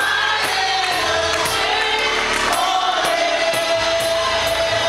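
Gospel music with voices singing together, holding long notes, over a steady percussion beat.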